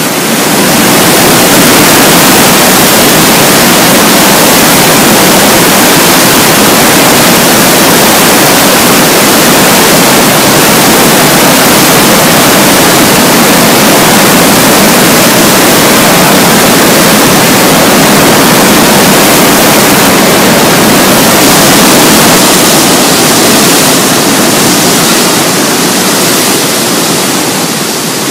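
Flood-swollen Jinsha River rushing through the narrow Tiger Leaping Gorge: a loud, steady rush of churning rapids, dropping a little in the last few seconds.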